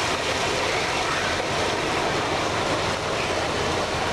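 Giant mining haul truck running as its raised bed tips out a load of rock, a steady, even mechanical noise that does not change.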